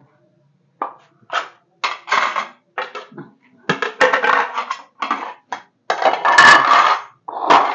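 Kitchen pots, pans and utensils clattering and scraping in an irregular run of knocks and longer rattles, loudest about six to seven seconds in, while flatbreads are cooking in a pan.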